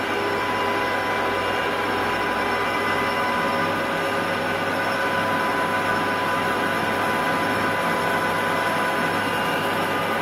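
Conventional metal lathe running with its chuck spinning a workpiece: a steady mechanical drone with a low hum and several steady whining tones from the machine's drive.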